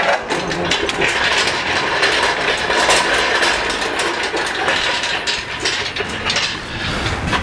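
Steel shop crane being wheeled across a concrete floor: casters rolling and the frame rattling and clanking.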